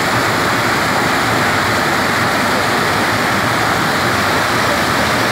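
Steady rushing of the pumped sheet of water pouring up the ramp of a sheet-wave surf simulator.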